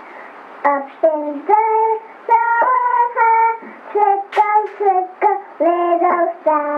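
A young child singing a tune in short held notes, starting about half a second in, recorded on a 1970s reel-to-reel tape.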